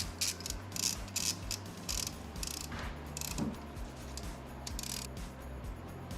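Ratchet wrench clicking in short strokes, about two or three bursts a second, thinning out about three seconds in.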